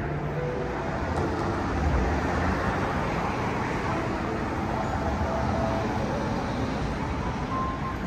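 Steady city street traffic noise, a continuous rumble and hiss of passing cars.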